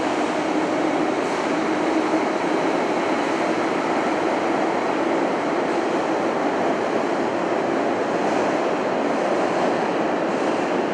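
Keiyo Line electric train at the underground Tokyo Station platform, a steady train noise with a low hum that fades out about halfway through.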